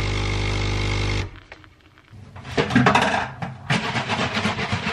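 Capsule coffee machine's pump buzzing steadily as it brews coffee into a mug, cutting off about a second in. A string of irregular knocks and clatter follows as kitchen things are handled.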